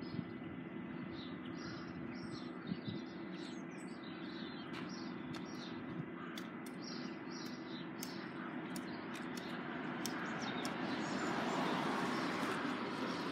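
Small songbirds chirping and twittering in short high calls over a steady outdoor background hum. A broad rushing noise swells from about ten seconds in and peaks near the end.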